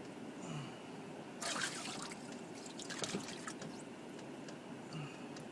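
Water trickling and dripping in a boat's livewell, with a louder splash about a second and a half in as the water is disturbed.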